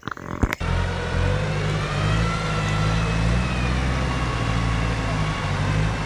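Off-road vehicle engine running steadily with a low drone and a faint whine over it. It starts abruptly about half a second in, after a few brief clicks.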